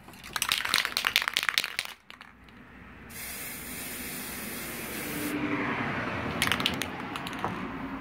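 A Rust-Oleum gloss red aerosol spray paint can being used on water: the mixing ball rattles as the can is shaken for about two seconds, then the nozzle hisses steadily for about two seconds as paint is sprayed onto the water's surface. A second short rattle comes near the end.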